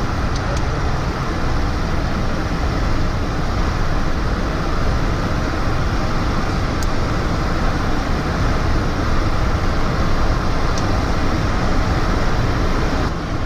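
Steady rush of air and jet engine noise inside the cockpit of a Cessna Citation XLS business jet in flight.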